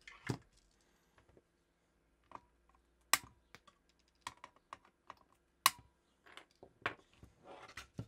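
Flush side cutters snipping the two wire leads of a freshly soldered electrolytic capacitor on a circuit board: two sharp snaps, about three and about five and a half seconds in. Lighter clicks and taps of tools on the board fall between them, and a rustle near the end comes as the board is turned over.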